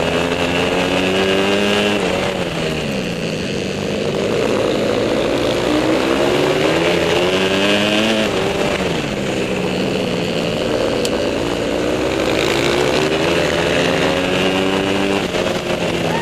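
Dirt bike engine heard from on board while racing, climbing in pitch as it accelerates and dropping as the throttle is rolled off into the turns, three times over.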